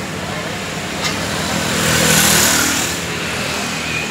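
A motor vehicle passing close by on the road, its engine and tyre noise swelling to a peak about two seconds in and then fading, over a steady low engine hum.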